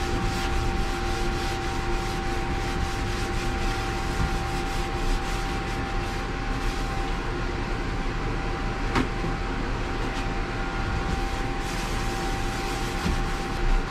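Portable ventilation blower running steadily, a constant motor drone with a steady hum. There is one small click about nine seconds in.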